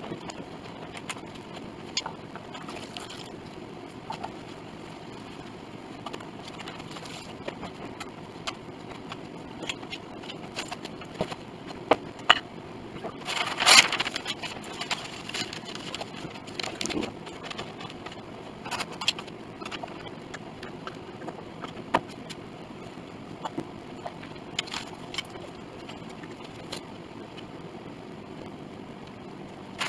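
Scattered clicks and knocks of steel bar clamps and C-clamps being set and tightened against a grand piano's wooden rim for gluing. A louder, longer scrape comes about 14 seconds in, over steady background noise.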